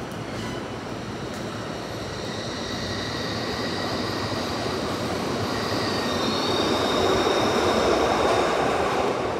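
Glasgow Subway train running through the tunnel, its wheels squealing on the rails over the rumble of the car. High, steady squeal tones come and go, one sliding down in pitch about six seconds in, and the noise grows louder toward the end.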